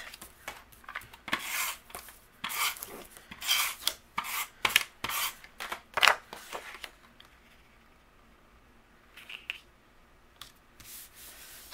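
Sheets of patterned paper and cardstock being handled and slid across a tabletop: a run of quick rustles and scrapes in roughly the first seven seconds, then only a few soft paper sounds.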